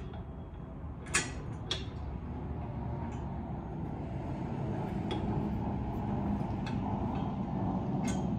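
Two sharp metallic clicks about a second apart, then a few fainter ticks, as a bracket, washer and nut are fitted by hand to a 1UP bike tray mount. Underneath runs a low rumble that grows steadily louder.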